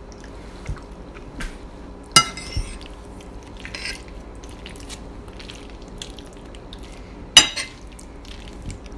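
Metal fork clinking against a plate as food is scooped up, with a sharp clink about two seconds in and a louder one about seven seconds in, and a few fainter taps between.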